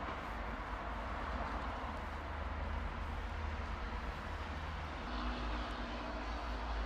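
City street noise: a steady traffic rumble and hiss, with a low engine hum coming in about five seconds in.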